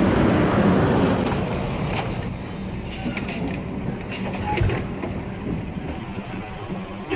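Automated side-loader garbage truck driving up and braking to a stop, its engine running with a steady low hum. A high brake squeal comes in about a second and a half in, and several clunks follow over the next few seconds.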